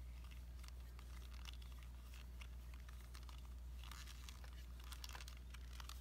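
Faint, irregular small clicks and rustles from hands handling a screwdriver and the metal hard-drive cover plate, over a low steady hum.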